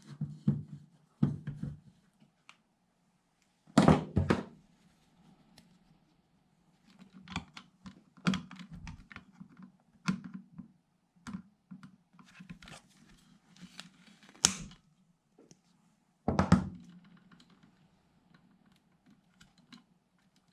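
Tools and small parts being handled and set down during a repair: irregular clicks and light knocks, with two louder thunks about four seconds in and again near sixteen seconds.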